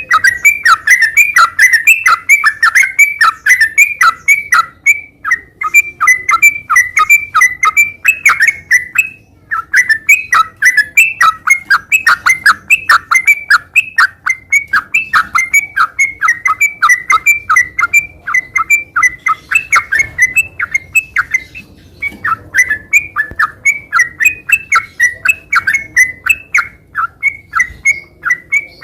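Yellow-vented bulbul (trucukan) singing continuously in a long, non-stop run of short chattering notes, about three a second, with only brief pauses.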